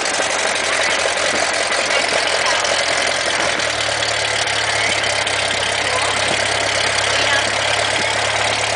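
Light single-engine airplane's piston engine and propeller running at idle just after being started, heard from inside the cockpit as loud, steady noise. A steady low drone sets in about three and a half seconds in.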